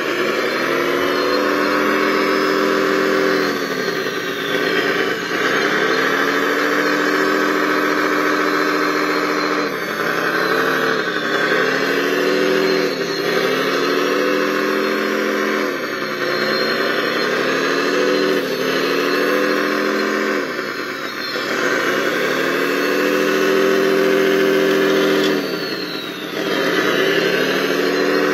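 Engine sound of a radio-controlled wheel loader running under load, its pitch sagging and then climbing back again every few seconds as it digs and pushes sand. A faint high whistle slides down in pitch twice.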